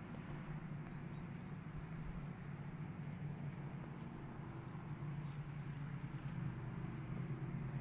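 A few faint bird chirps come and go over a steady low hum.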